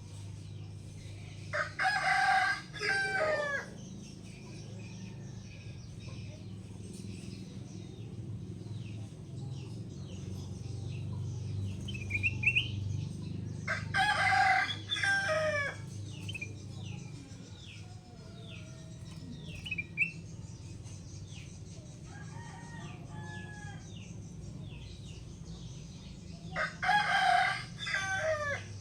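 A rooster crows three times, about twelve seconds apart, each crow lasting about two seconds and falling at the end. A few short, high bird chirps come between the crows, over a steady low hum.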